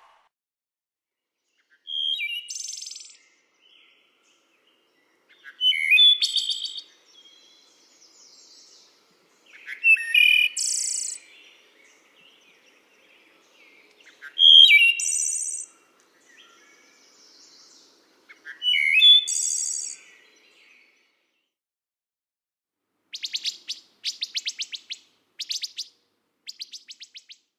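A songbird singing the same short phrase five times, about four seconds apart: a brief whistled note followed by a high buzzy trill. Near the end comes a quick run of high ticks.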